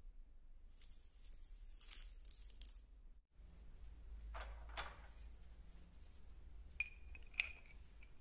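Quiet handling of small steel parts: a faint rustle as loose ball bearings are held in a gloved hand, then light metal clinks of steel bolts and a pipe being picked up, with two sharp ringing clinks near the end.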